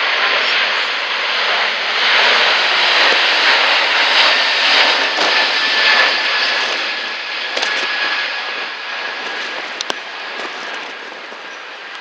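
Airbus A380's four jet engines at takeoff power as it climbs out: a loud, even rush of jet noise with a faint steady whine, fading from about halfway through as the aircraft draws away. A brief sharp click near the end.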